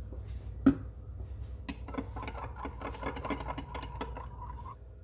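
A metal knife stirring pink colorant into liquid soft-bait plastic in a glass measuring cup, scraping and clinking against the glass in a quick, uneven rhythm, after a single sharp knock about a second in.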